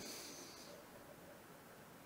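Near silence: faint room hiss slowly fading away.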